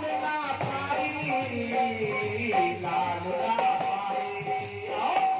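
Devotional Hindi bhajan: a man sings a sliding, ornamented melody over a dholak drum and a jingling rattle keeping a steady rhythm.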